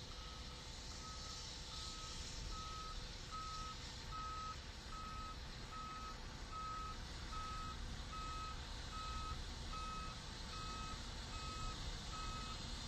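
Fire engine's back-up alarm beeping as the engine reverses: one steady tone repeating evenly, somewhat under two beeps a second, over a low rumble.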